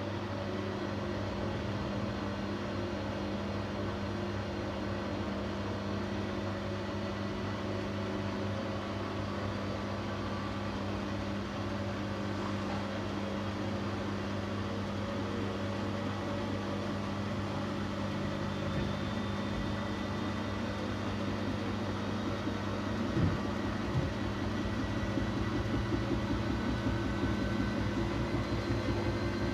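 Siemens Siwamat iQ 716 washing machine running with a steady motor hum and whir, with two short knocks from the machine about two-thirds of the way through.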